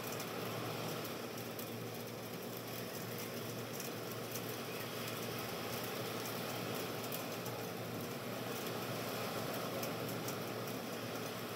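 Steady low hum and hiss of an indoor room, with a few faint ticks.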